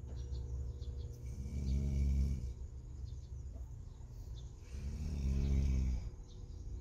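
A person snoring: two long, rasping inhalations about three and a half seconds apart, each swelling and fading, over a steady low hum.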